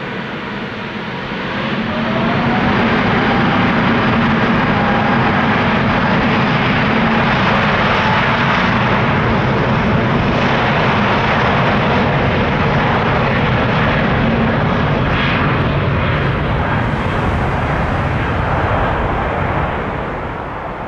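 Airbus A350-900's two Rolls-Royce Trent XWB turbofans running at high thrust as the airliner rolls down the runway. The jet noise swells about two seconds in, with a rising whine as the engines spool up, holds loud and steady, then eases near the end.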